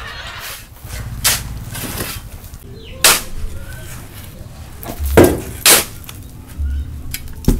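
Shovels digging into a load of sand in a pickup truck's bed: a handful of sharp scrapes and thuds spaced a second or two apart as the sand is shovelled out.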